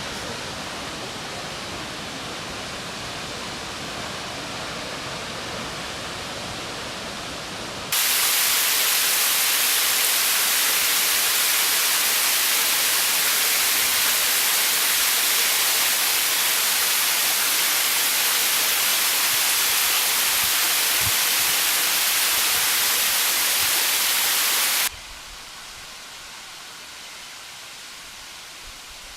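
Waterfall roar: a steady rush of falling water that jumps abruptly louder and brighter about a quarter of the way in, then drops suddenly to a quieter rush near the end.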